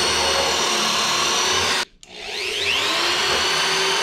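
Corded electric drill boring a hole into a wooden 2x4: the motor whine rises as it spins up and then holds steady. It cuts out suddenly about halfway, then spins up again and runs steady.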